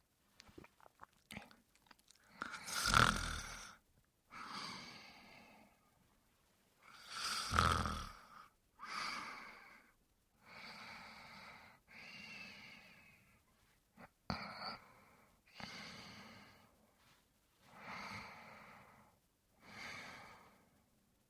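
A man snoring: two loud snores about three and eight seconds in, each followed by a softer breath, then a run of quieter snoring breaths about every two seconds. A few faint clicks near the start and a sharp click about fourteen seconds in.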